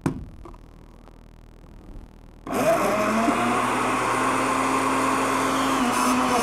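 A blender lid clunks onto the jar, then about two and a half seconds in the electric countertop blender's motor switches on suddenly and runs steadily at full speed, blending a peeled banana.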